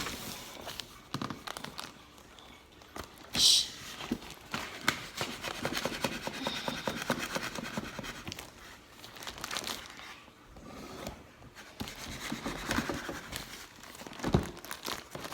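Cardboard package being cut and torn open by hand: irregular crinkling, scraping and rustling of cardboard and packing material, with one short sharp rip about three and a half seconds in and a dull thump near the end.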